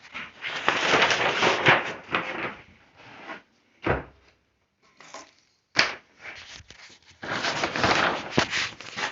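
Workbench parts being handled: two long scraping, sliding runs with a few sharp knocks between them.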